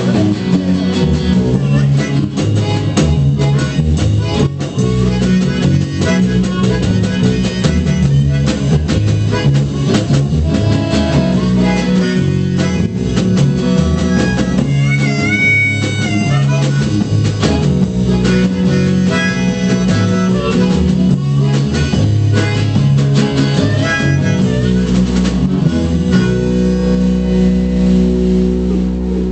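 Band playing an instrumental passage with drums and guitar and a wavering lead line, ending on a held chord that stops abruptly at the very end.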